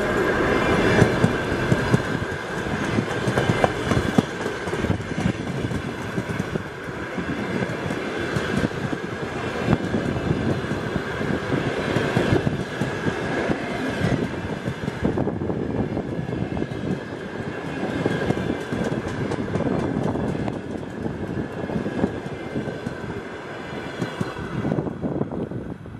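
ChS8 electric locomotive and its passenger coaches rolling past at speed, wheels clattering over the rails, with a steady high whine running through it. The sound thins about a second before the end as the last coaches go by.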